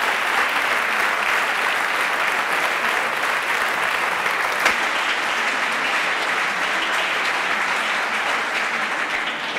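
Audience applause, a steady dense clapping from a large seated crowd that begins to fade near the end.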